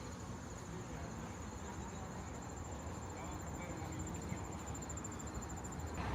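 Insects trilling steadily outdoors, a high, fast-pulsing buzz that stops near the end, over a low hum of outdoor background noise.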